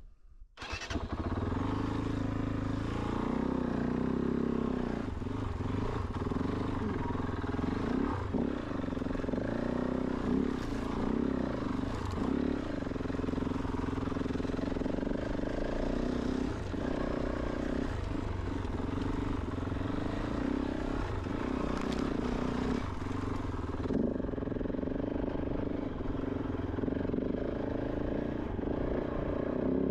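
Kove 450 Rally's single-cylinder engine running steadily at low revs as the motorcycle is ridden, with a few sharp knocks along the way. It starts abruptly about half a second in.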